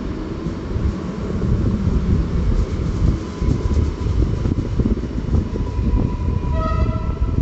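A train passing close by, with a steady heavy rumble of wheels on the rails. A short horn toot sounds near the end.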